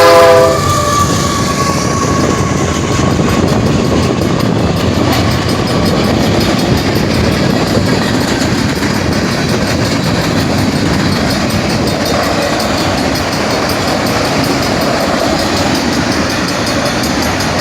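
A train passing close by. A locomotive horn blast cuts off about half a second in, then a steady rumble of railcars rolling past on the rails.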